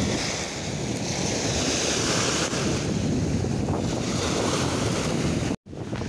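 Small waves washing onto a sandy shore, a steady rushing surf, with wind buffeting the microphone. The sound drops out for a split second near the end and comes straight back.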